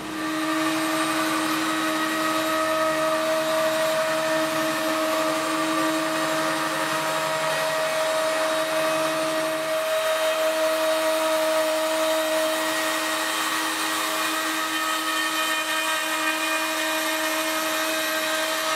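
CNC router's spindle motor running with a steady high whine as the gantry moves it across the plywood spoilboard, milling a thin reference line with a fine bit. A lower layer of the sound drops out about halfway through.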